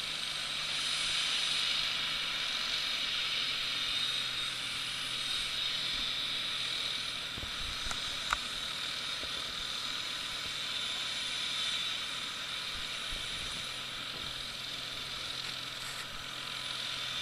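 Light helicopter running on the ground with its main rotor turning, a steady whining hiss with a low hum under it. A brief click comes about eight seconds in.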